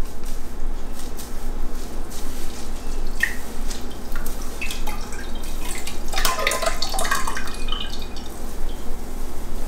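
Dye liquid dripping and trickling back into a jar as a long hank of wet wool fibre is drawn up out of the dye bath, the drips busiest a little past halfway.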